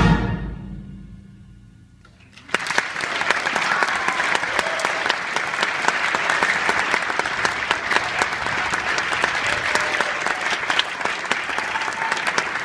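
A concert band's final chord fades away over about two seconds; after a brief hush the audience breaks into steady applause.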